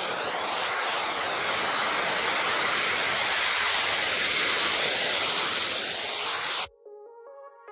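A rushing hiss of noise that grows slowly louder and cuts off abruptly near the end, followed by soft synthesizer notes.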